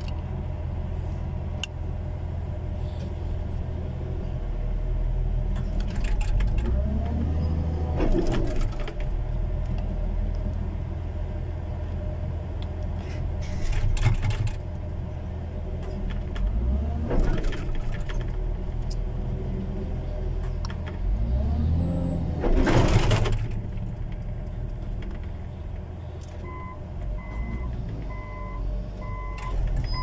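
Diesel engine of a loader heard from its cab, running steadily and revving up and back down three times as the machine works. Near the end a reversing alarm starts beeping at an even pace.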